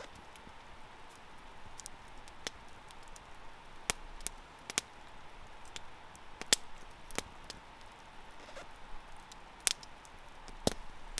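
Small wood campfire burning low on glowing embers, crackling with sharp, irregular pops roughly every second over a steady hiss.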